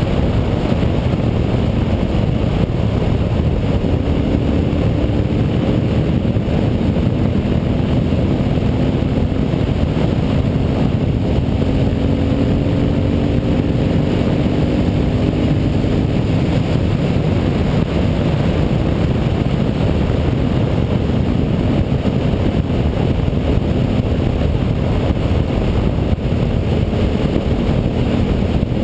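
Carbureted Honda Varadero 1000's V-twin engine running at cruising speed on the open road, its tone rising gently about halfway through. Heavy wind rush over the bike-mounted microphone dominates.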